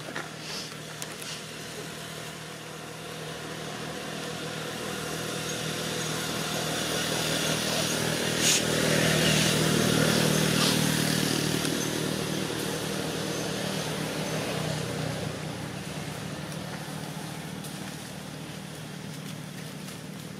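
A motor vehicle passing by: its engine hum grows louder, peaks about halfway through, then fades away, with a brief sharp click near the loudest point.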